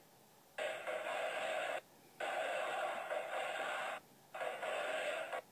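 Large crowd of demonstrators chanting in unison, phrase after phrase of one to two seconds each, with short breaks between the phrases.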